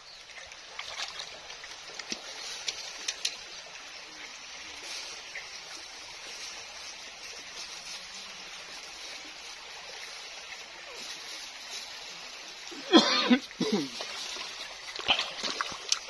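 Shallow river running over stones in a steady wash, with light splashes of feet in flip-flops wading through the water. A brief, loud voice-like call sounds about thirteen seconds in.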